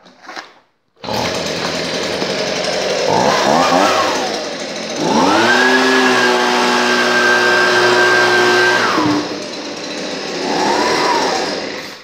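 Husqvarna 125BV 28 cc two-stroke leaf blower engine running, coming in suddenly about a second in. It idles, revs up and down once, then is held at full throttle for about four seconds as a steady high whine with the rush of the air stream. It drops back to idle and gives one more short rev near the end.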